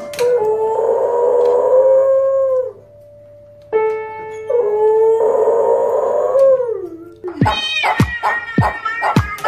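A beagle howls along to an upright piano it is pawing: two long held howls, each falling in pitch as it ends, with piano notes struck just before the second. Near the end, music with a steady beat starts.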